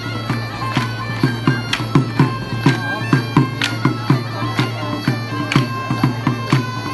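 Catalan cobla music: reed wind instruments playing a lively folk dance tune over a quick, steady beat of low thumps.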